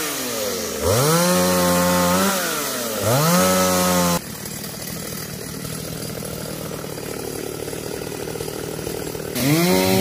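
Small two-stroke chainsaw revved up and let back down twice in quick throttle blips, then dropping abruptly to a quieter, steady running about four seconds in, before revving up again near the end.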